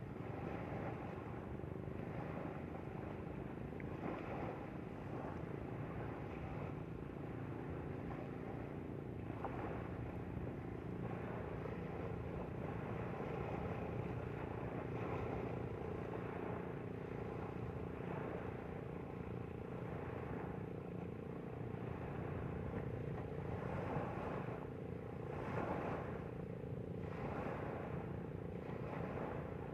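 Motorboat's engine running steadily under way, with rushing and splashing water along the hull.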